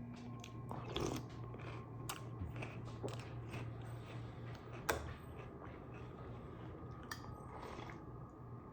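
Someone chewing crunchy cereal close to the microphone, with irregular crunches and clicks and a sharper click about five seconds in, over a steady low hum.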